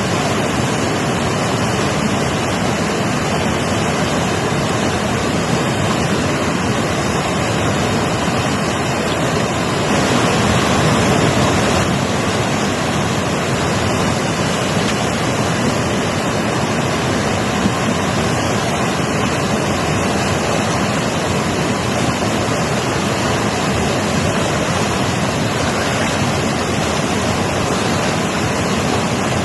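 Mountain river rushing over rocks, a steady loud roar of water, swelling briefly about ten seconds in.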